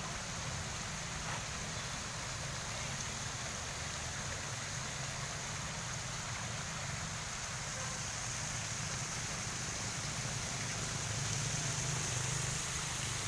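Water cascading from the bowls of a tiered fountain and splashing into its basin, a steady rushing.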